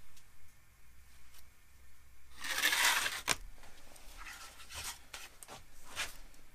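Sheet-metal blank and wooden form block being handled on a steel workbench: a short scraping slide about two and a half seconds in, a sharp clack right after, then a few light knocks as the pieces are set down and picked up.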